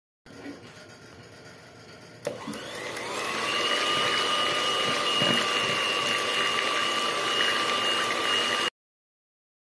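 Electric hand mixer switched on with a click about two seconds in, its motor spinning up to a steady high whine as the beaters whisk raw eggs; the sound cuts off suddenly near the end.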